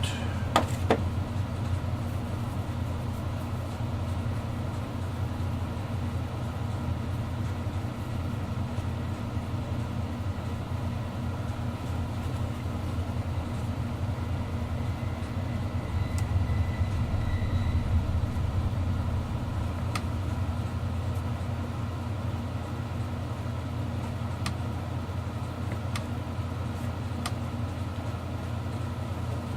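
Steady low machine hum, as of a motor or fan running, with a few light clicks.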